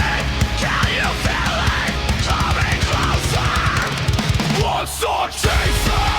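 Heavy metal music with fast, dense drumming. It drops out briefly about five seconds in, then comes back in full.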